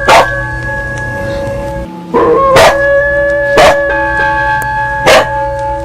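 A temple bell ringing with long steady tones, struck again about two seconds in. A dog barks about four times over it.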